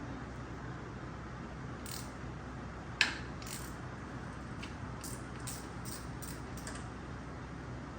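Metal clicks from work with hand tools: one sharp clack about three seconds in, then a quick run of lighter clicks, over a steady low hum.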